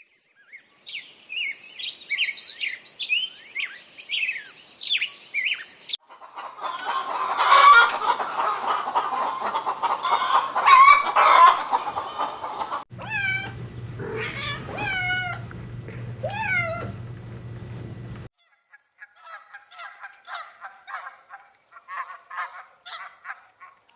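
Domestic fowl calling in several short spliced clips: high chirping at first, then a denser stretch of clucking and calls, then repeated loud calls that bend downward in pitch, then faster, fainter calls near the end. The clips change abruptly about 6, 13 and 18 seconds in.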